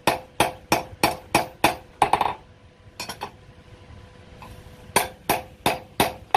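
Hand hammer striking steel in blacksmith knife forging: a steady run of ringing blows, about three a second, that stops about two seconds in; after a pause with a couple of lighter hits, the blows resume about five seconds in.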